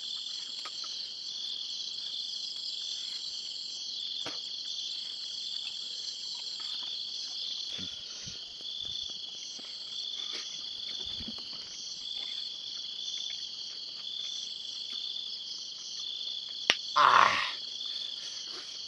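A steady, high chorus of night insects, pulsing slightly, with a brief louder noise near the end.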